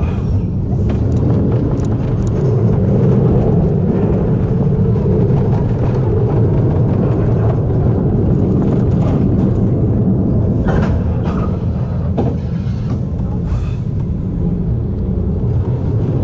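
Bobsled roller coaster car running along its trough, its wheels making a loud steady rumble, with a few short knocks and rattles from the car in the second half.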